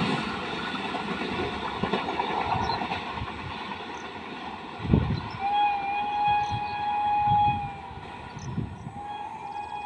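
Passing express train rumbling and clattering on the rails, with a heavy thump about halfway through. The locomotive's horn then sounds one long steady blast, and a second blast begins near the end.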